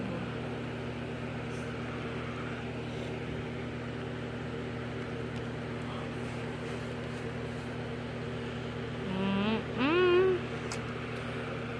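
A steady low hum with a few fixed tones, from an unidentified machine or appliance. About nine to ten seconds in, a short wordless voice sound slides up in pitch.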